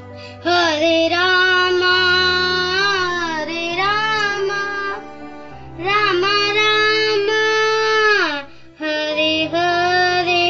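A child's voice singing a devotional song in three long phrases of held, gliding notes with short pauses between, over a steady low instrumental accompaniment.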